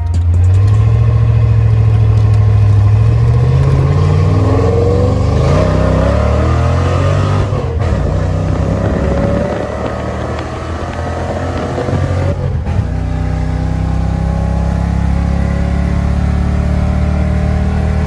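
Cammed V8 of a 1991 Fox-body Mustang heard from inside the cabin, pulling under acceleration. Its pitch climbs, breaks off briefly twice, then holds steady. It keeps running without cutting out, with a new ignition switch and lock cylinder fitted.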